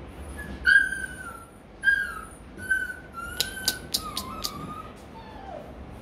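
Rottweiler puppy whining: a string of short, high-pitched whimpers, several sliding down in pitch, with a few sharp clicks in the middle.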